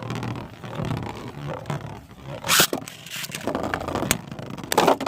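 Two Beyblades, one on a home-made 3D-printed driver, spinning and grinding against each other and the stadium floor with a steady scraping whir. They clash in sharp hits about two and a half seconds in and again near the end.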